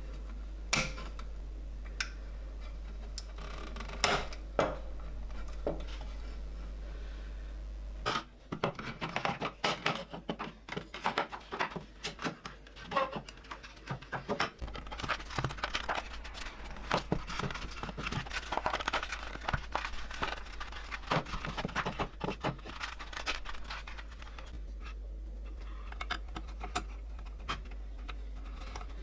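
Small metal parts clicking, tapping and scraping as they are handled. The clicks are scattered at first, turn dense and busy from about eight seconds in, and thin out again near the end. A low steady hum runs underneath.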